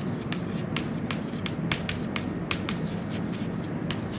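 Chalk tapping and scratching on a chalkboard as words are written: a dozen or so short, sharp clicks at irregular intervals. A steady low hum runs underneath.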